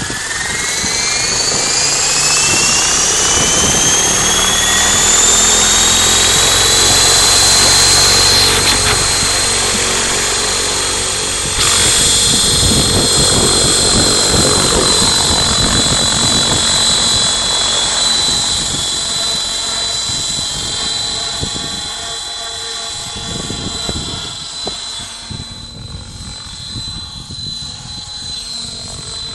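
Mikado Logo 800 Xxtreme electric RC helicopter spooling up: a high whine from the motor and rotors rising in pitch over the first several seconds, then holding steady. Later it grows fainter as the helicopter lifts off and climbs away.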